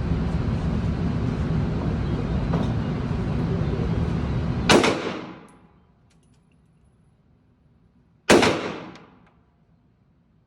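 Two gunshots about three and a half seconds apart, each a sharp crack with a short echoing tail. Before the first shot a steady rushing noise fills the background, and it drops away as the first shot fades.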